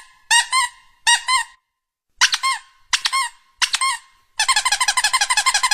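Squeaky-toy squeaks, heard as short clusters of two or three high squeaks with silent gaps between them, then a rapid run of about a dozen squeaks a second near the end.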